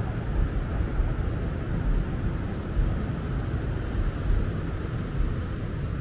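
Wind rumbling on the microphone of a small handheld camera, an uneven low buffeting over a steady outdoor hiss.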